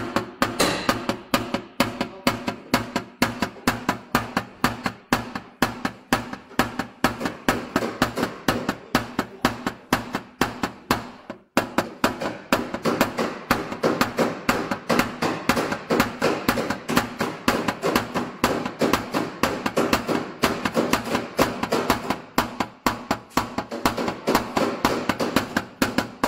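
A plastic-headed tap-down hammer striking the sheet metal of a Honda CR-V front fender in a fast, steady run of light taps, about four or five a second, with one brief pause near the middle. This is paintless dent repair: the high metal along both sides of a deep crease is being knocked down.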